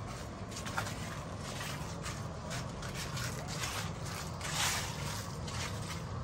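Footsteps of a person walking at a steady pace, about two steps a second, with a louder step about four and a half seconds in, over a steady low background rumble.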